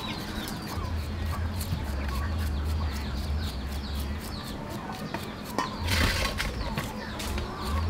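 A hand shredding peeler rasping through ripe mango in quick repeated strokes, about five a second, with a louder scrape about six seconds in. Chickens cluck in the background over a low rumble.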